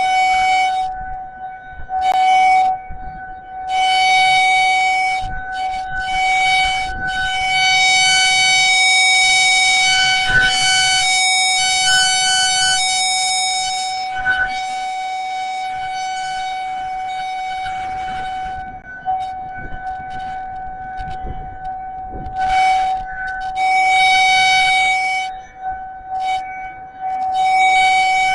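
Federal Signal 2001-SRN rotating electromechanical warning siren sounding its steady alert tone. It holds one unchanging pitch that swells loud and fades back several times as the rotating horn sweeps toward and away.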